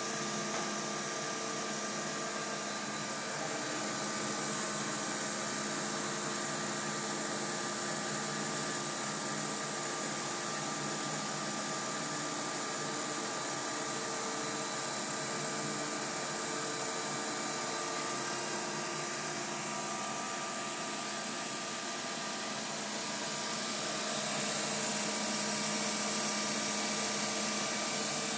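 Hamai CNC milling machine cutting a mold: a steady mechanical hum with several held tones over a high hiss, growing louder and hissier near the end.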